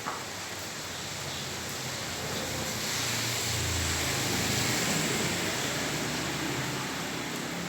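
Heavy rain falling on a flooded street, with a vehicle passing through the standing water: a low rumble and wash of spray swell up about three seconds in, peak, then fade as it goes by.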